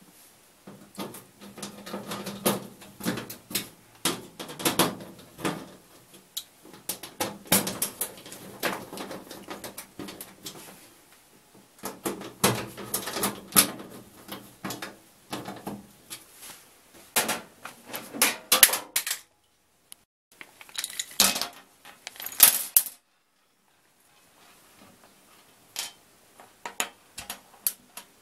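Clinking and rattling of small metal and plastic parts being handled, in irregular bursts of rapid clicks, as the transport-lock fittings are taken off the back of a washing machine. The clatter breaks off twice near the middle and end.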